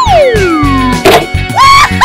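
Bouncy children's background music with added sound effects: a long falling whistle-like glide over the first second, a sharp knock about a second in, and a short tone that rises, holds and drops near the end.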